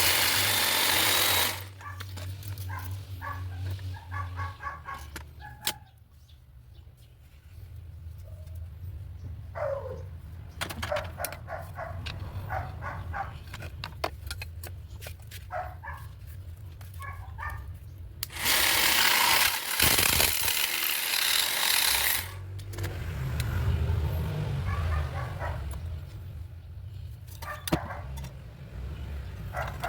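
Bosch GST 12V-LI cordless jigsaw cutting in two loud stretches of a few seconds, one at the very start and one about two-thirds of the way through, with quieter sounds in between.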